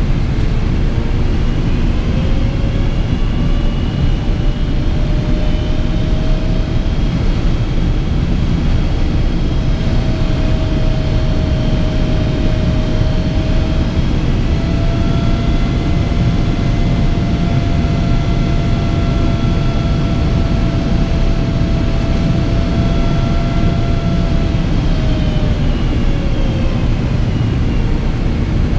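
Cabin noise of a Boeing 777-200 with Pratt & Whitney PW4000 engines: a steady dense rumble under the engines' whine. The whine rises in pitch over the first several seconds, holds steady, then drops near the end as engine thrust changes.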